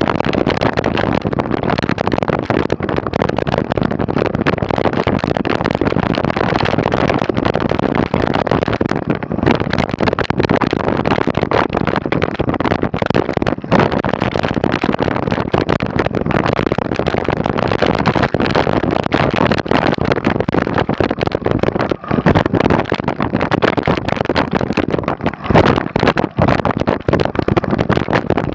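Mountain bike riding noise picked up by a bike- or body-mounted camera: a steady loud rush with constant rattles and knocks from the bike over rough ground.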